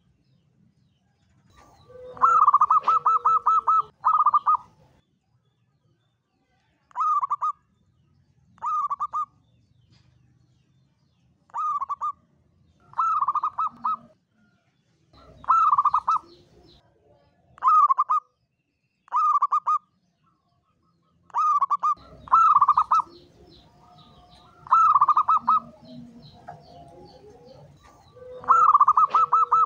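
Zebra dove (perkutut) singing. A rapid trilled coo opens the song, then a run of separate 'kuk' coos comes every second or two, and the trilled opening returns near the end.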